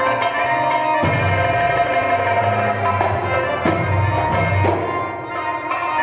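Live Egyptian baladi music: violin and accordion playing a melody over a hand-drum beat.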